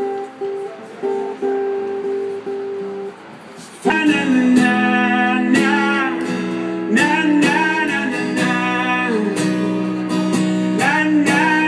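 Acoustic guitar played softly with single picked notes, then about four seconds in a louder passage starts abruptly: strummed acoustic guitar with a singing voice.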